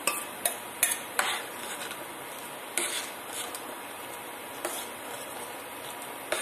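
A spoon scraping and clinking against a cooking pot as ground coconut and cumin paste is added and stirred into boiling Malabar cucumber. There are several short scrapes in the first second and a half and a few more later, with a steady hiss between them.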